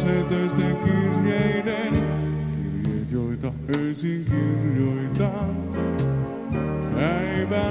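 Finnish dance band playing a song live, with keyboards, electric bass and drums.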